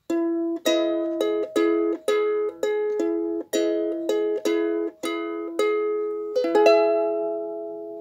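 Ukulele strummed in chords, about two strums a second, ending with a quick flourish of strokes and a last chord left to ring and fade out.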